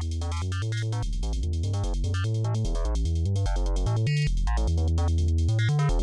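Electronic music from a VCV Rack virtual modular synthesizer patch: quick sequenced synth notes with rapid ratchet repeats over a deep bass line and ticking drum-machine percussion. It grows steadily louder as it fades in.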